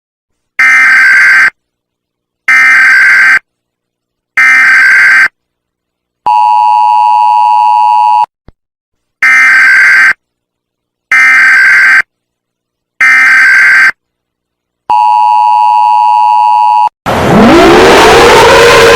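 Emergency alert system alarm: three buzzing tones of about a second each, then a two-second tone of a different pitch, the whole pattern played twice with gaps of silence. About 17 seconds in, a siren starts, rising in pitch over noise and then beginning to fall.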